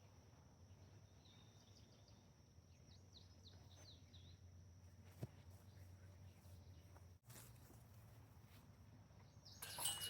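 Faint outdoor ambience: a steady high insect drone and a few quick falling bird chirps. A single click comes about five seconds in, and louder noise comes in near the end.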